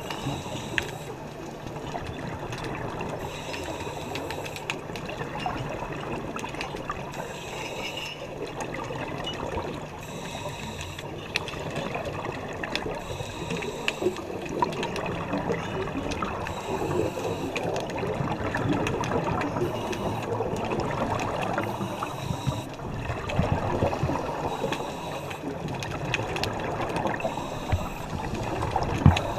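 Underwater scuba diving sound: exhaled air from divers' regulators bubbling and gurgling in swells every few seconds over steady water noise, picked up through a GoPro's underwater housing.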